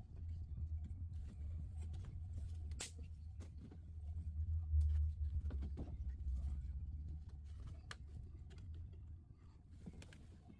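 A low rumble that swells to its loudest about five seconds in and fades out near the end, with scattered light clicks and taps over it.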